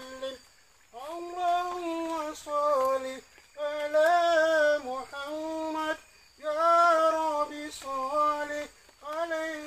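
A voice singing a sholawat, an Islamic devotional song in praise of the Prophet, in long melodic phrases with brief pauses between them.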